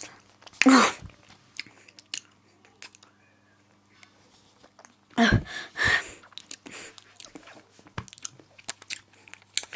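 A child biting and chewing an advent-calendar chocolate close to the microphone, with small crunching clicks. Two louder bursts come just under a second in and about five seconds in.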